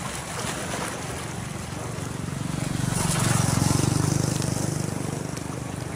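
A small engine running with a fast, even pulse, growing louder to a peak a little past the middle and then easing off, over a rush of moving water.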